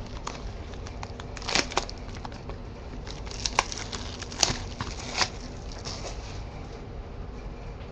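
Trading card box packaging being handled and opened: a few short crinkles and clicks of cardboard and plastic wrap, over a steady low hum.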